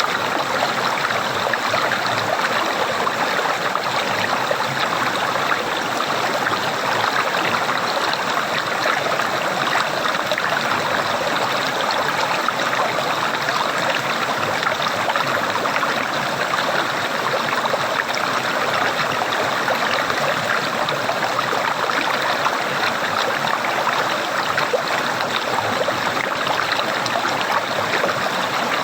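Flowing water gurgling steadily, an unbroken stream-like rush with no pauses or single splashes standing out.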